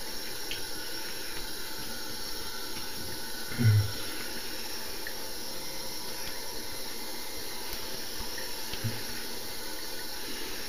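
Steady faint hiss of a bathroom tap running into the sink while the face is rinsed. A short low thump comes about three and a half seconds in, and a softer one near nine seconds.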